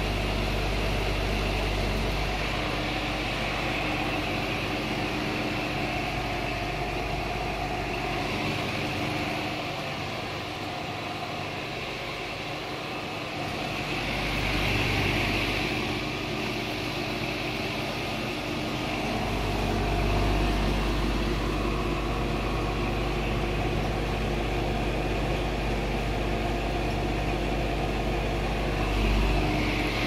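Goodman central air-conditioner outdoor condenser unit running: a steady low hum under the even rush of its top discharge fan, swelling in loudness a couple of times.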